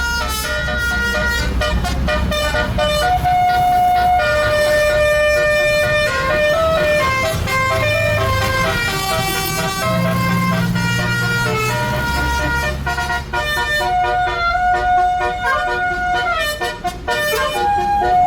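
Tour buses sounding telolet horns: multi-tone horns playing tunes that step up and down in pitch, often several notes at once, over the low rumble of bus engines.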